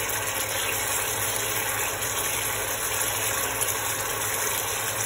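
Steady hum of an induction cooktop running, with a thick sauce simmering and sizzling in the pan as it reduces and thickens.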